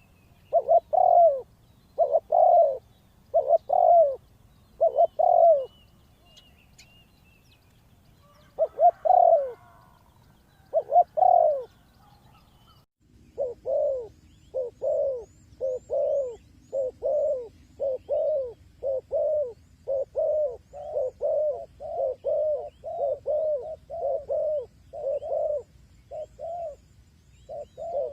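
Spotted dove cooing in short repeated notes, with a pause after about six seconds. After a break about halfway through, the coos come faster and a little quieter to the end, with faint high chirps of small birds above them.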